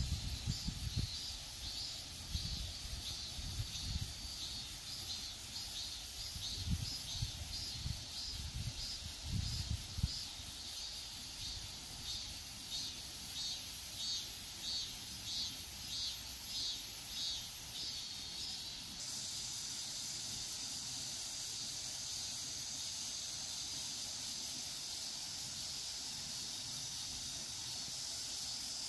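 Field insects singing: a rhythmic high pulsing chirp that gives way abruptly, about two-thirds of the way through, to a steady high insect drone. Low rumbles on the microphone come and go in the first ten seconds.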